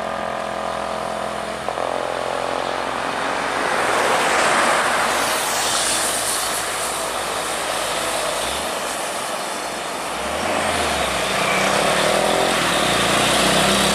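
Road traffic passing close: a loaded Hino 500 truck's diesel engine pulling slowly uphill, with a pickup, an SUV and motorcycles going by. The rush of passing vehicles swells about four to six seconds in, and the truck's engine note comes up again near the end.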